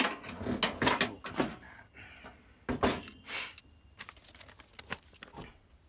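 Metal clinks, knocks and rattles as parts of a Coleman camp grill/stove are handled and fitted: a run of clatter in the first second and a half, then a few separate knocks and clinks.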